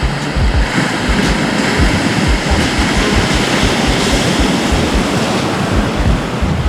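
Surf washing on a beach with wind buffeting the microphone in irregular low gusts.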